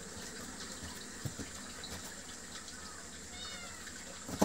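A cat inside a hole in the wall gives one short, high meow about three and a half seconds in, over a steady hiss. A sharp knock comes right at the end.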